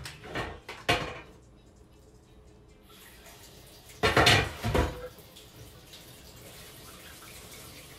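Kitchenware clattering in a sink, then hot water running steadily from the kitchen tap from about three seconds in. A louder burst of clattering comes about a second after the water starts.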